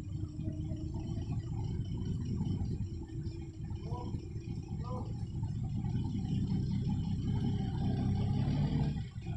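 Forklift engine running steadily while it holds a load of sawn timber up at a lorry, a little louder near the end. Brief voices about four and five seconds in.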